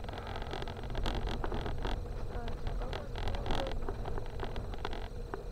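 Car driving over a broken, rutted, stony road surface, heard from inside the cabin: a steady low engine-and-tyre rumble with frequent knocks and clicks from stones and the suspension.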